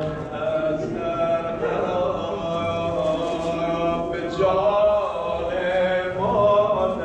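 A male voice chanting a slow, melodic devotional recitation in long held notes that slide from one pitch to another.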